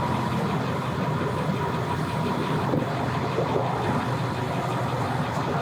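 Motor vehicle engine running steadily at low speed, a constant low hum.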